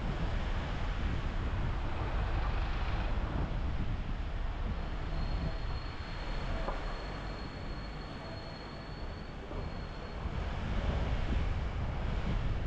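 Car driving on city streets: a steady low rumble of road and engine noise, with a thin high whine that comes in about five seconds in and fades out about five seconds later.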